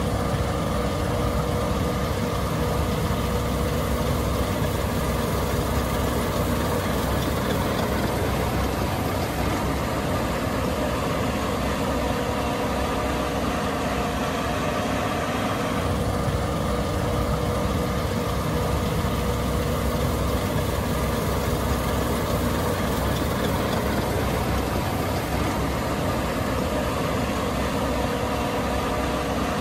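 Case IH 8260 Axial-Flow combine running steadily: a constant heavy engine drone with steady tones over it.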